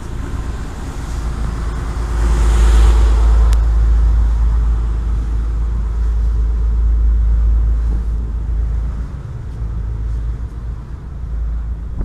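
Wind buffeting the microphone over the steady hum of a motor boat's engine under way, with the deep rumble swelling for several seconds in the middle.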